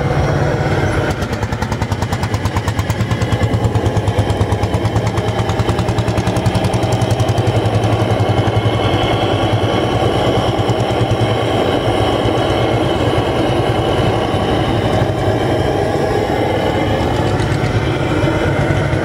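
Tractor engine idling steadily, a fast, even chugging of firing beats that grows a little louder about three seconds in and settles again.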